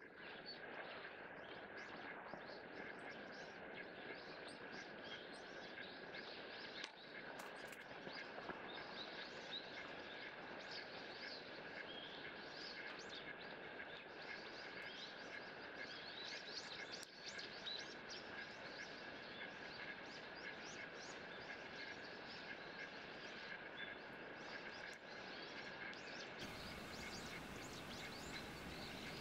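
Light rain making a faint, steady hiss, with small birds chirping and twittering throughout.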